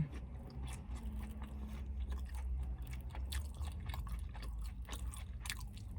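A person chewing food close to the microphone, with irregular small crunches and wet mouth clicks, over a low steady hum.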